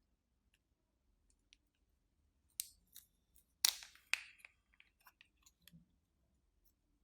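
Slime being squished and mixed in a plastic bag: a scatter of sharp clicks and crackly pops, loudest in a short cluster around the middle.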